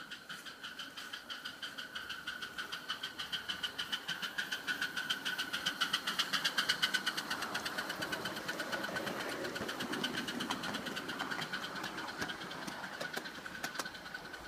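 Miniature live-steam GWR pannier tank locomotive chuffing as it pulls a riding car along the garden track: a fast, even beat of exhaust puffs, several a second, that builds to its loudest about halfway through and then fades away.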